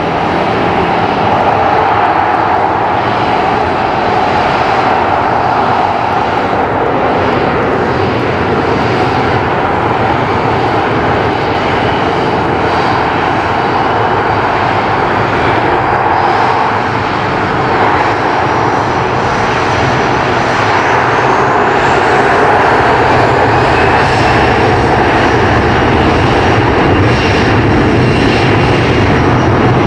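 Boeing 737-500's twin CFM56-3 turbofan engines running with a steady jet whine as the airliner taxis onto the runway. About two-thirds of the way through, the whine rises in pitch and the sound gets a little louder as the engines spool up.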